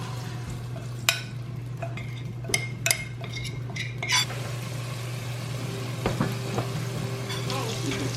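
A utensil knocks against the cooking pot a few sharp times. About four seconds in, curry paste starts sizzling as it fries in hot rendered duck fat and is stirred.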